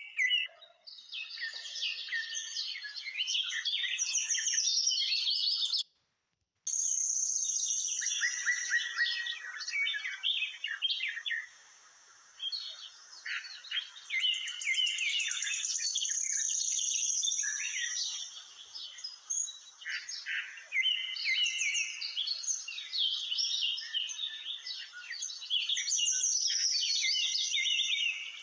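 Many small birds chirping and twittering in a dense, overlapping chorus of quick high calls. It cuts out completely for about half a second around six seconds in.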